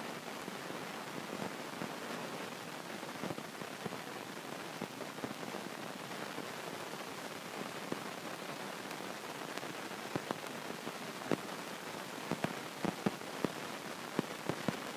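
Steady hiss of a large gymnasium hall, with scattered sharp taps and knocks that come more often and louder over the last five seconds.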